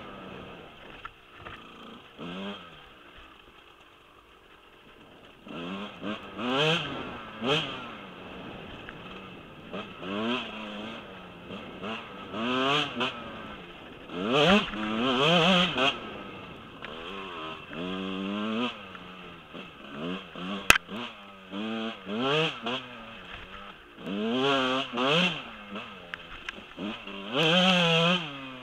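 Husqvarna 125 dirt bike engine revving up and easing off again and again while riding a trail, in surges every second or two. There is a quieter stretch early on and a single sharp click about two-thirds of the way through.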